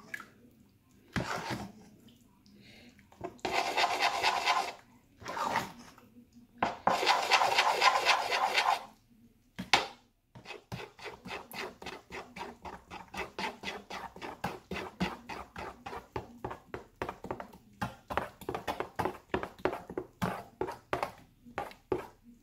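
A metal spoon stirring and beating thick handesh batter in an aluminium saucepan. There are two louder bursts of fast scraping about four and eight seconds in. After that comes a steady run of quick spoon clicks and scrapes against the pot, several a second.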